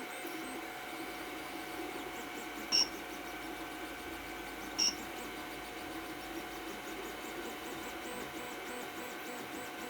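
FDM 3D printer running a print: a steady mechanical hum with a few constant tones, broken twice by a short high-pitched chirp about two seconds apart.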